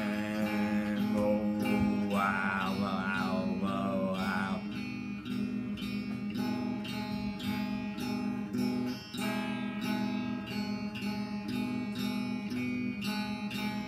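Electric guitar strummed in a steady, even rhythm, with a wavering sung line over it from about two to four and a half seconds in.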